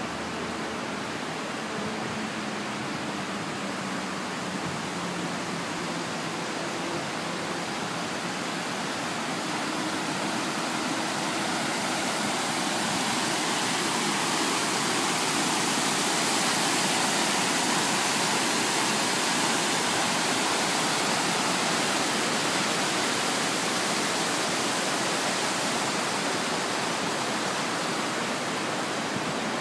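Steady rush of river water spilling over a low dam, an even noise that swells a little in the middle.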